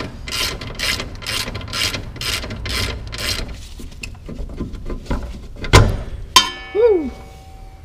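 Ratchet wrench with a 17 mm socket clicking in steady back-and-forth strokes, two to three a second, as the Miata's lower rear shock bolt is loosened. The clicking stops about three and a half seconds in, and a couple of sharp metallic knocks follow near the end.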